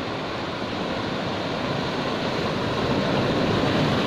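Sea surf washing and breaking around shoreline boulders, a steady rush that grows louder toward the end as a wave breaks.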